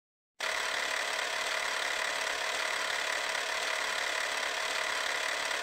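Steady mechanical whirring hiss of an intro sound effect over the logo card, starting abruptly about half a second in and holding an even level.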